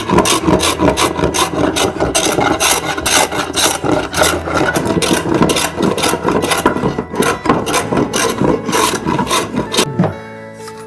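Rhythmic rasping strokes of a hand tool working a surface, about three or four a second, stopping about ten seconds in.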